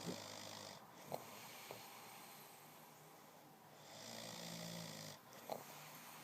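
A man snoring heavily in his sleep: one snore fades out about a second in, and another comes about four seconds in, with a low rattling rumble under a breathy rush. A few short sharp clicks fall between and after the snores.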